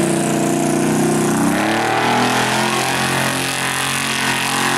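Lifted square-body pickup truck's engine running loud at high revs as it drives through a mud bog, holding a steady pitch with a slight shift about a second and a half in.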